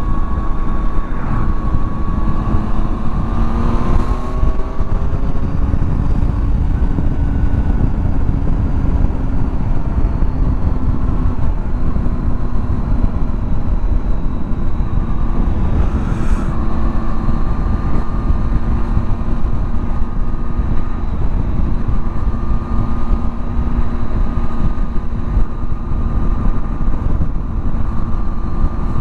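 Triumph Tiger 800's three-cylinder engine running at road speed while riding, under heavy low wind rumble. The engine note climbs about four seconds in and steps up again about halfway through.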